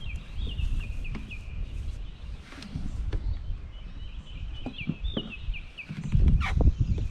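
A bird calling in two runs of quick, short falling chirps, one at the start and one about four seconds in, over a low wind rumble on the microphone that gets louder near the end.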